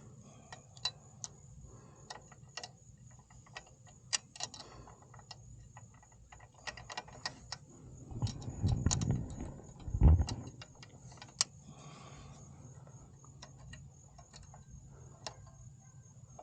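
Scattered light metallic clicks and taps of a wrench working the nut on a motorcycle's kickstand safety switch, with a louder stretch of handling rumble about halfway through that ends in a knock. A steady high thin hum runs behind.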